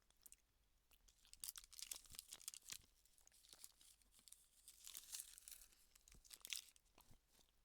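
Faint eating sounds: bursts of scraping and crinkling at a plastic microwave-meal tray, starting about a second in and running in clusters until near the end.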